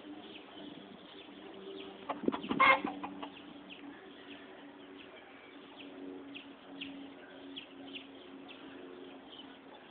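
Chickens in a pen: a loud, short squawk about two seconds in, then small scattered clucks over a low steady background tone.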